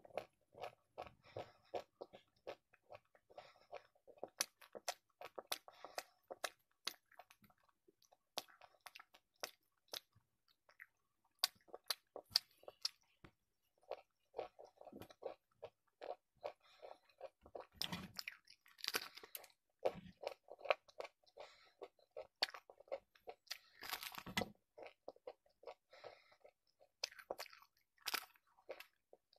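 A person chewing fried puri bread, a quick run of short sharp clicks and small crunches from the mouth, then biting into a large puri near the end.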